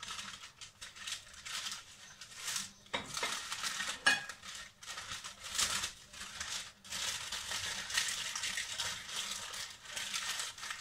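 Baking paper crinkling and rustling in irregular crackles as it is folded and rolled around a whole fish to make an oven parcel.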